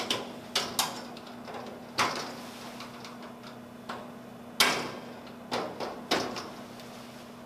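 About nine sharp metallic clicks and knocks at irregular intervals, the loudest about halfway through, as a flat-blade screwdriver pries the hinge pins up out of the hinge bodies of a Rittal TS8 steel enclosure door. A faint steady hum runs underneath.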